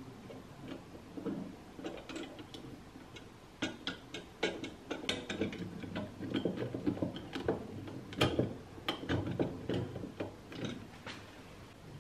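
Thin wire rods of an oil lamp's lifting mechanism clicking and scraping against the lamp's painted metal frame as they are fitted into their guides by hand. The small metal clicks are irregular, sparse at first and much more frequent from about four seconds in.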